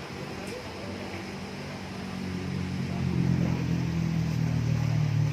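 A motor engine hums steadily at a low pitch, growing louder from about two seconds in and staying loud to the end.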